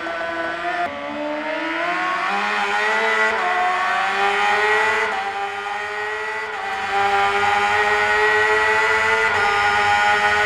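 High-revving vehicle engine accelerating, its pitch climbing over several seconds, then running at steady high revs and a little louder for the last few seconds.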